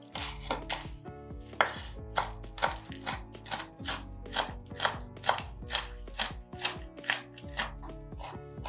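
Kitchen knife chopping steadily on a cutting board, about two sharp strikes a second.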